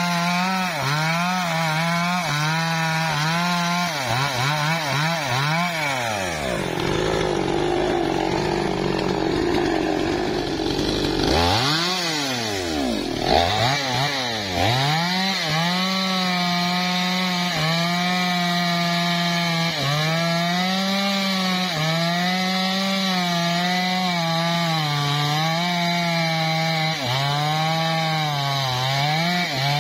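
Two-stroke chainsaw cutting wood at high revs, its engine note dipping and recovering over and over as the chain bites. For a few seconds in the first half it is pulled down low under heavy load.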